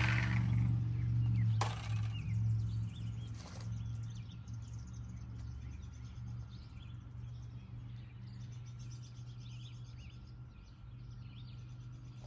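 A reciprocating saw stops cutting the exhaust pipe and winds down at the very start. Then come two sharp knocks, about one and a half and three and a half seconds in, over a steady low hum and birds chirping.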